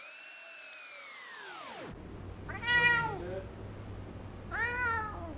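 Domestic tabby cat meowing twice, about two and a half and four and a half seconds in, each meow rising then falling in pitch. Before the meows, a long pitched tone glides steadily downward over the first two seconds.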